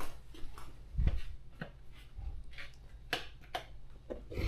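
Handling and moving-about noises: scattered clicks and knocks, with a dull thump about a second in. Among them, a wall light switch clicks off.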